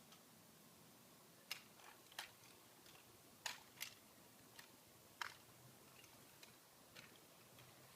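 About ten irregularly spaced sharp clicks and taps of a drill rifle being spun and caught in the hands, over faint room tone.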